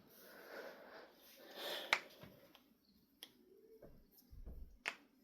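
A few sharp, isolated clicks, about two seconds in, again near three seconds and near five seconds, over faint room noise.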